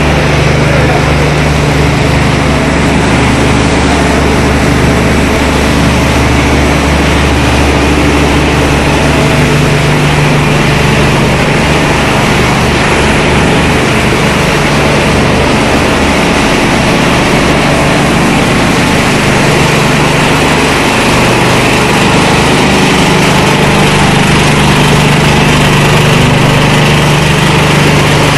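Corn tortilla chip production line running: machinery noise with a steady deep hum.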